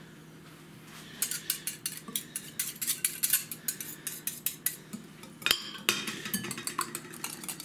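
A metal spoon beating an oil, mustard and lemon-juice sauce in a glass bowl: rapid clinking of the spoon against the glass, with one louder clink about five and a half seconds in.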